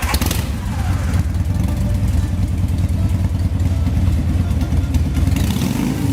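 A heavy engine running with a steady, rough low rumble.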